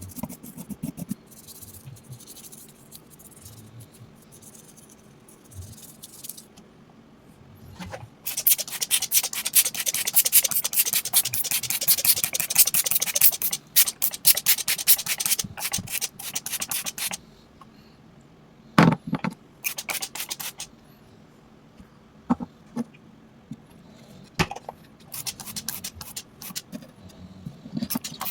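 Rapid scrubbing and scraping strokes on a hard object, dense and loud from about eight to seventeen seconds in, quieter and more scattered before and after, with a couple of sharp knocks about nineteen seconds in.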